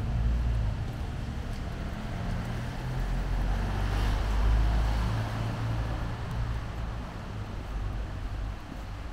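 City street traffic: a steady low engine rumble, with a vehicle passing that swells loudest about four to five seconds in.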